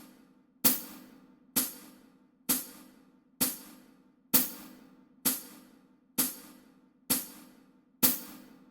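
Steady metronome-style click, about one sharp tick a second, with no instrument playing over it.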